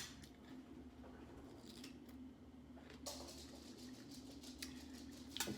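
Faint chewing of a pineapple piece, with a few soft clicks over a steady low hum.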